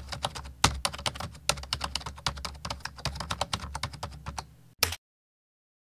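Computer keyboard typing: a fast, uneven run of key clicks over a low steady hum, ending with one louder keystroke near the end.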